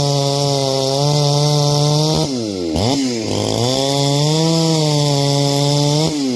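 Ported Neo-Tec 865 two-stroke chainsaw run up and held at high revs, dropping back and revving up again a little over two seconds in, then held high once more before dropping off near the end.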